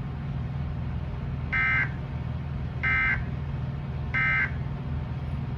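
Emergency Alert System end-of-message (EOM) header: three short bursts of digital data tones about a second apart, marking the close of the alert. A steady low hum runs underneath.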